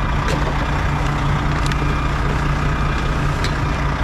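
A truck engine idling close by, a steady low hum, with a few light clicks from cans and rubbish being handled in a plastic bin.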